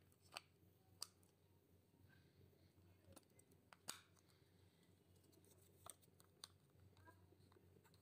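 Near silence broken by a few faint, scattered clicks of batteries being pressed into the battery compartment of a small plastic remote control.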